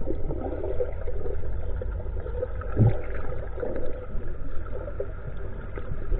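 Boat engine heard underwater through a camera housing as a steady, muffled low rumble, with faint wavering tones over it and one falling glide about three seconds in.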